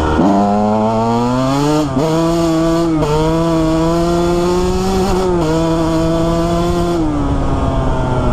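2001 Honda CR125R's 125 cc single-cylinder two-stroke engine running under throttle while riding, its pitch climbing at first with short dips about 2, 3 and 5.5 seconds in. About 7 seconds in the pitch falls as the throttle is eased off.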